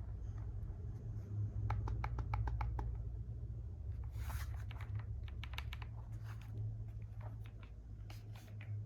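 Keys of a Tecware Spectre 75 mechanical keyboard with Cocoa Brown switches being pressed in quick runs of clicks, about eight a second, in a few short bursts. There is a brief rustle near the middle and a steady low hum underneath.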